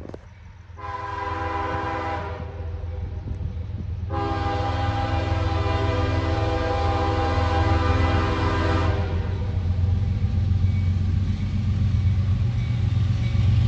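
CSX freight locomotive sounding its multi-note air horn for a grade crossing: a short blast, then a long one of about five seconds. Under it the low diesel rumble of the approaching train grows steadily louder.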